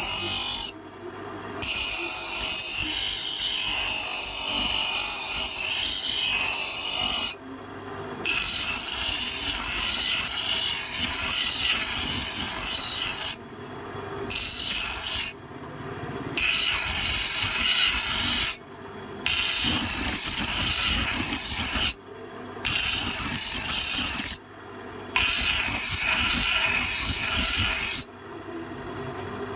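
Metal being ground or abraded, a loud steady hiss concentrated high up, in stretches of several seconds that stop abruptly about eight times for under a second each.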